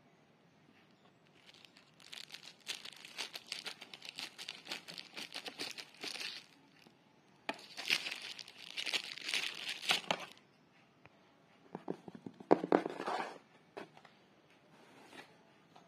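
Thin plastic packaging crinkling and rustling in three bursts as it is cut open with scissors and pulled off.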